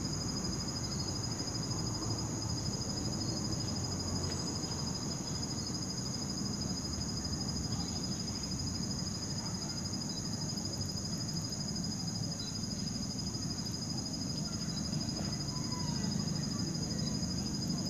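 Outdoor night ambience: a steady high-pitched drone of crickets over a low, even rumble, with no clear creak or knock standing out.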